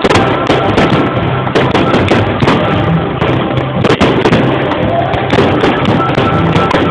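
Fireworks display: rapid loud bangs and crackling of bursting shells, several a second.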